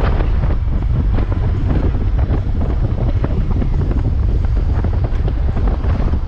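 Wind buffeting the camera microphone on a moving Honda Gold Wing motorcycle: a loud, steady, low rumble of rushing air that flutters unevenly.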